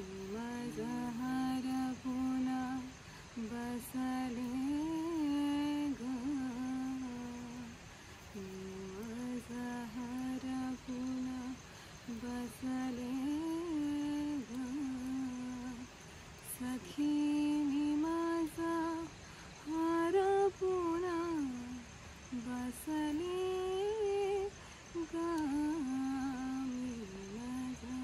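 A person humming a slow tune: long held notes joined by smooth slides in pitch, with short breaks between phrases.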